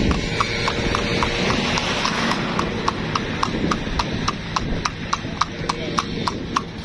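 Horse's hooves clip-clopping on hard pavement in a steady, even rhythm of about four to five strikes a second, growing clearer about two seconds in.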